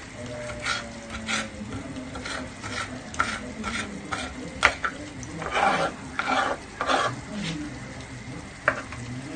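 A utensil stirring vegetables frying in a tagine, sizzling under irregular scrapes against the pot. There are three stronger scraping strokes a little past the middle, and a sharp clink about halfway and another near the end.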